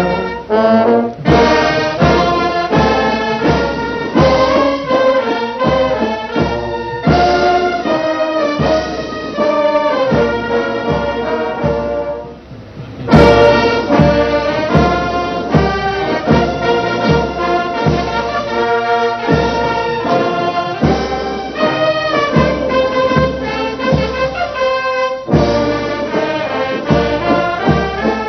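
Military brass band playing with a steady drum beat. A short break comes about twelve seconds in, then the band comes back with a loud crash.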